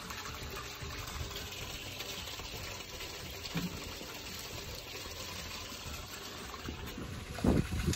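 Steady rush of running water, with a short thump near the end.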